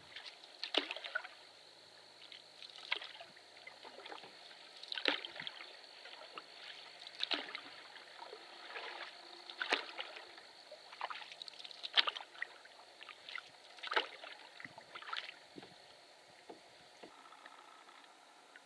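Canoe paddle strokes in calm water: a short splash and trickle about every two seconds, stopping about 15 seconds in.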